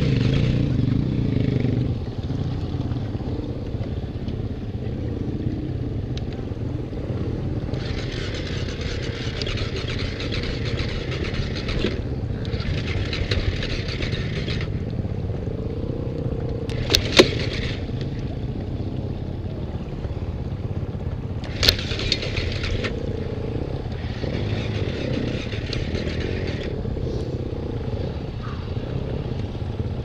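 Husaberg dirt bike's engine running a little louder for the first two seconds, then idling steadily. Two sharp clicks come near the middle, about five seconds apart.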